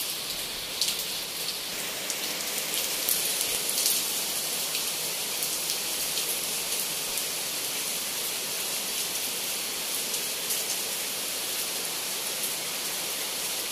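Heavy rain falling steadily: a dense, even hiss, with a few sharp drip taps in the first few seconds.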